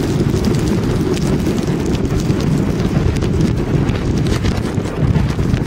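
Hurricane Sandy's wind buffeting the camera microphone: a loud, continuous, fluttering rumble, with rain spattering on the camera.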